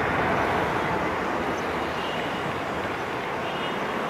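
Airbus A330 jet engines at takeoff thrust during the takeoff roll: a steady, fairly loud roar that eases slightly after the first second. A faint high whine comes and goes in the second half.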